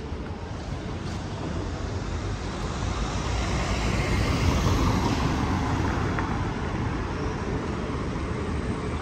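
Street ambience: a steady low rumble that swells to its loudest about halfway through and eases off again.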